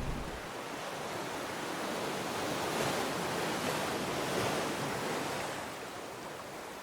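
Rushing sound of surf washing, swelling in the middle and then fading away near the end.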